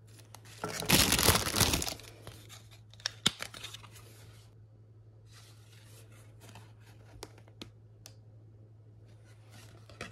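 Plastic packaging being handled: a loud rustle of crinkly plastic wrap about a second in, then lighter crinkles and a few sharp clicks, fading to quiet rustling. A faint steady low hum runs underneath.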